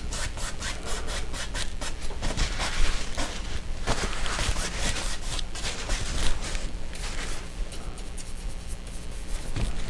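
A bristle brush scrubbing wet oil paint across a stretched canvas in quick back-and-forth strokes, several a second.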